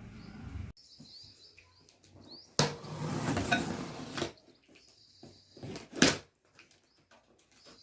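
Cardboard packaging of a microwave oven being handled and opened: a stretch of rustling and scraping, then a single sharp knock about six seconds in.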